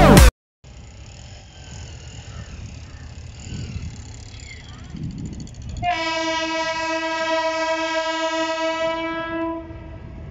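Diesel-electric multiple unit (DEMU) passenger train sounding its horn in one long, steady blast of about four seconds, starting about six seconds in, over the low rumble of the approaching train.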